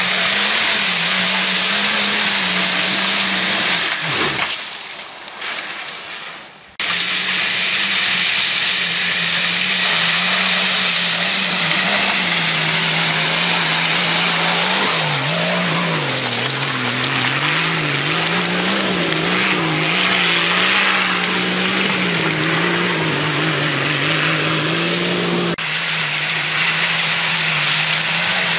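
Off-road 4x4 engine held at high revs while climbing a loose-rock slope, its pitch wavering up and down with the throttle. The sound drops away for a few seconds about four seconds in, then comes back strong.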